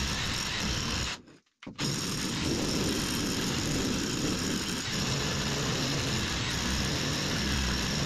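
Power drill boring through a timber ceiling joist, running hard, stopping briefly about a second in, then running on steadily.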